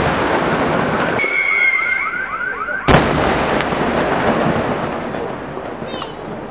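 Daylight fireworks going off: a loud bang about three seconds in over dense, continuous crackling. A shrill, repeating chirping whistle runs through the middle, then the crackle thins out near the end.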